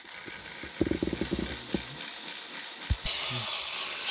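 Battery-powered Thomas & Friends toy train engines running on plastic track, their small motors and gears giving a rapid clicking rattle for about a second, then scattered lighter clicks and a sharp knock near the end.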